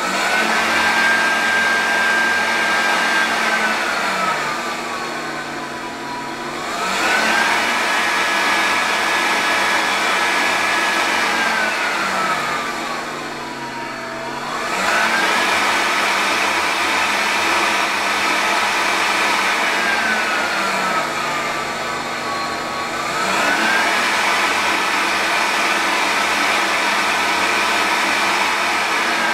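Electric fan blowing air up a tube, its motor whine speeding up and slowing down in turn as its speed is varied to move a ping-pong ball between rest points. The whine holds high for a few seconds, eases down and quieter, then quickly rises again, about every eight seconds.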